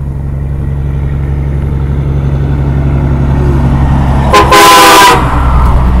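Semi truck's train horn blasting once, short and loud enough to distort, about four seconds in, sounded in answer to a boy's arm-pump request. Before it, the rumble of the approaching truck grows steadily louder.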